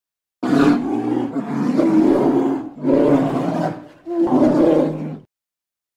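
Bear roaring in three long, low calls, the first starting about half a second in and the last stopping about a second before the end.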